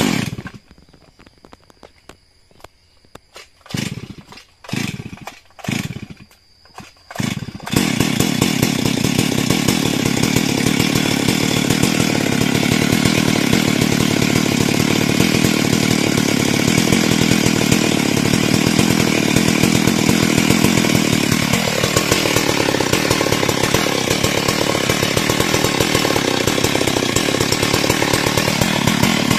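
Stihl MS 382 two-stroke chainsaw being started: a few short bursts that fire and fall away, then it catches about eight seconds in and runs steadily at high revs. A little past twenty seconds its pitch drops and holds lower as it loads down cutting into the teak trunk, picking up again near the end.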